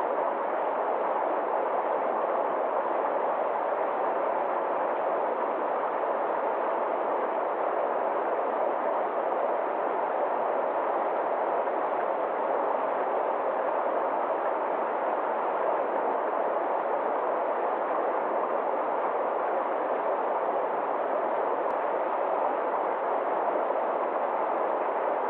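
Forest stream rushing over rocks in small cascades: a steady, unbroken rush of water.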